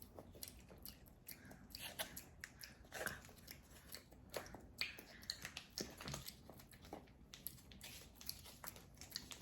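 Crackers being bitten and chewed close to the microphone: many irregular crisp crunches with softer chewing between them.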